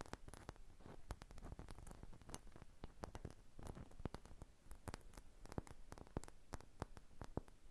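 Fingernails tapping and handling small objects: faint, irregular taps and clicks, several a second, over a light rustle.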